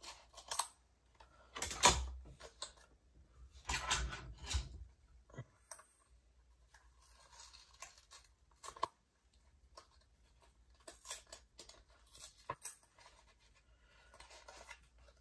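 A foil trading-card booster pack being opened, with two loud crackling, tearing rustles about two and four seconds in. Quieter rustles and small clicks of the cards being handled follow.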